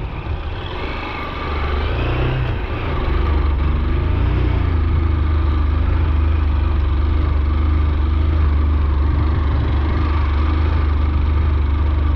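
Honda XR190 motorcycle's single-cylinder engine pulling away and riding uphill, getting louder about two to three seconds in, then running steadily.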